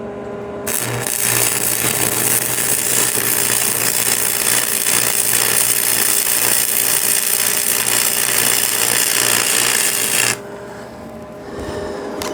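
Electric welding arc crackling and hissing steadily while a weld is laid. It starts just under a second in and cuts off suddenly after about ten seconds, when the arc is broken.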